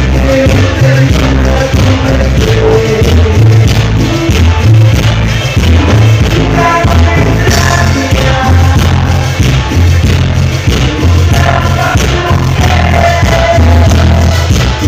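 Live cumbia band playing loudly through a PA, with a heavy, pulsing bass line and a vocalist singing over it.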